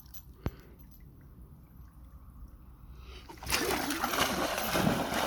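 A dog splashing into lake water, a loud burst of splashing that starts about three and a half seconds in and keeps going. Before it, quiet, with one sharp click about half a second in.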